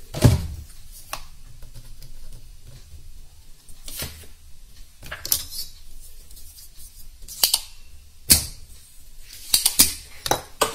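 Scattered sharp clicks and light knocks of hand tools against a TV circuit board while a soldering iron desolders a swollen electrolytic capacitor. There are about eight separate clicks, the loudest just after the start and another about eight seconds in.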